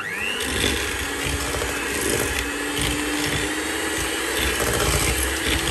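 Electric hand mixer switched on, its motor whining up to speed within the first half second and then running steadily as the beaters cream butter and sugar.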